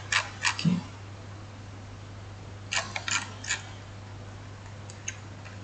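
Clicking of a computer keyboard and mouse: two clicks at the start, a quick run of three about three seconds in, and faint ticks near the end, with a soft thump just under a second in. A steady low electrical hum underneath.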